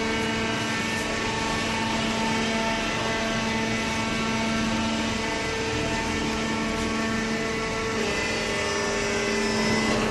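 Hydraulic cardboard baler's pump motor running with a steady hum, its tone shifting slightly about eight seconds in.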